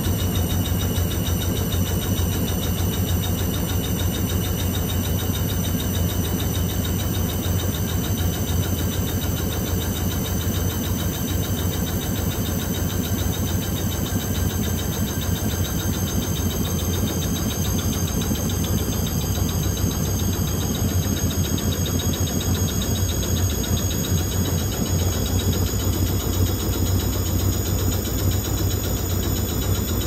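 Washing machine drain pump running with a steady low hum, with a faint high whine that creeps up in pitch. It is pumping out slowly, which the owner puts down to debris the wash has dislodged, probably caught in the pump filter.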